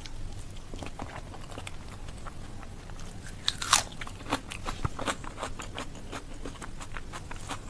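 Close-miked mouth sounds of a person chewing a handful of rice mixed with mashed bharta: wet clicks and crunches that grow busier and louder from about three seconds in, the loudest crunch just before four seconds.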